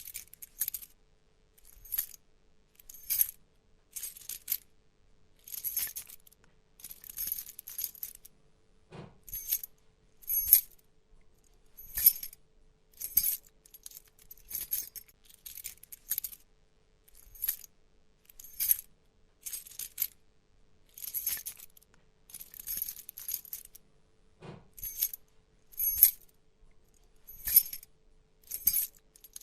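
A bunch of metal keys jangling in short repeated shakes, about one every second with brief pauses between, bright and clinking.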